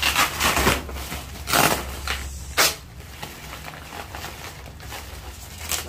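Cardboard and plastic packing rustling and tearing in a few short noisy bursts as a bazooka subwoofer enclosure is pulled out of its box and wrap by hand. The bursts are loudest in the first second and again about one and a half and two and a half seconds in, over a low steady hum.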